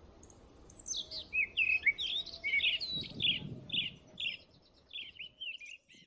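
A songbird singing a quick, varied run of short chirps and whistled notes.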